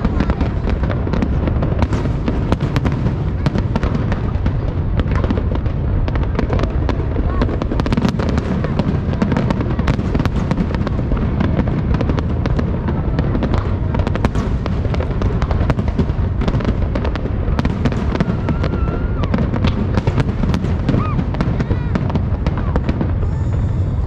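Fireworks and firecrackers going off continuously: a dense, unbroken crackle of many sharp pops over a steady low rumble of booms, with no pause.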